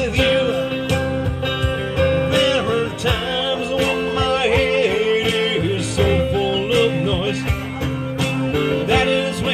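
Live music: a song with guitar accompaniment and a sung melody.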